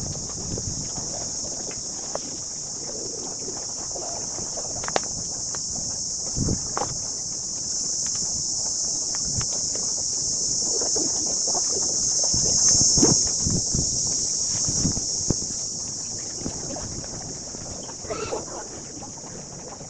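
A steady, high-pitched insect chorus drones throughout, swelling a little past the middle. Scattered soft knocks sit underneath it.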